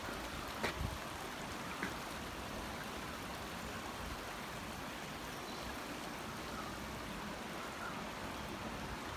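Shallow stream running over rocks: a steady rushing hiss, with a couple of brief knocks in the first two seconds.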